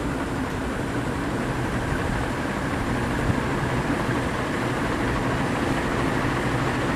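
56-inch agricultural ceiling fan running on test: a steady rush of air with a low motor hum, growing slightly louder.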